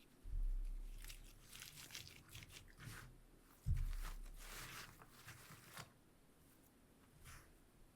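Dry flower stems and plant material crackling and rustling as they are handled and pushed into a string weaving. Two dull low thumps come about a quarter second and three and a half seconds in.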